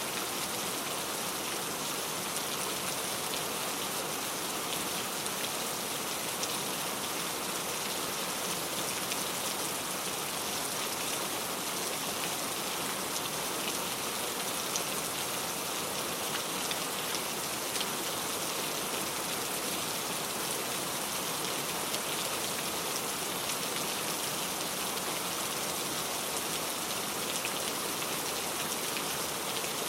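Heavy rain falling steadily, a dense even hiss of drops with faint individual patters.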